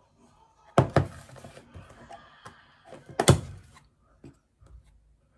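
Red plastic food tub being handled and its snap-on lid pried open, giving sharp plastic clicks and knocks: two about a second in and the loudest a little past three seconds, with light rustling handling between.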